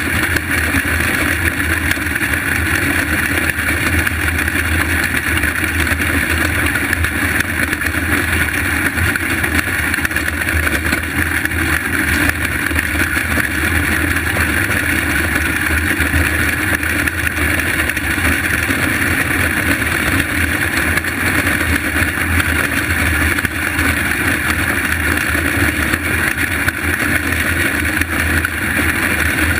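Engines of small winged racing karts running steadily at speed, heard from a camera riding on one of the karts among the pack, a continuous drone with no let-up.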